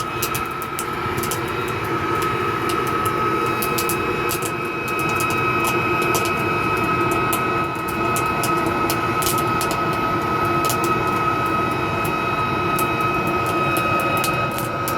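Homemade metal-melting furnace running: a steady roar with a high, even whine and frequent sharp crackles and pops.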